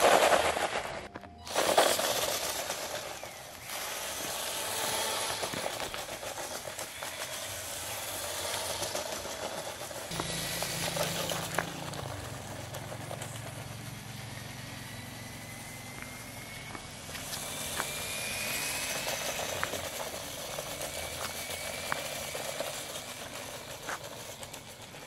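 RC truck driven by a cordless drill's motor and two-speed gearbox, running over gravel and concrete: wheels spinning and throwing grit as it pulls away, then the motor whining and tyres crunching loose stones, with scattered small clicks of grit.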